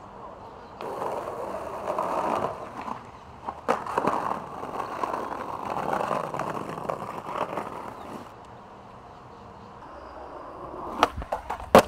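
Skateboard wheels rolling over pavement, with a couple of clacks about four seconds in; the rolling fades out around eight seconds. Near the end come two sharp cracks of the board hitting the ground, the second the loudest.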